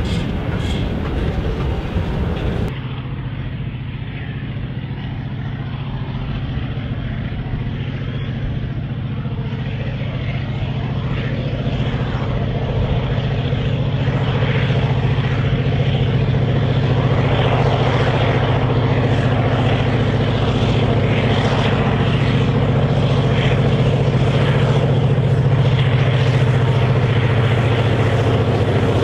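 Diesel-electric locomotives, an Alco 900 class among them, hauling an empty iron-ore train on narrow-gauge track. A steady low engine drone grows gradually louder as the train approaches.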